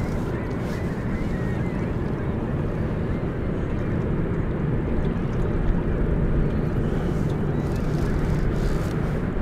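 Wind buffeting the microphone and water lapping against a fishing kayak on choppy open water: a steady low rumble.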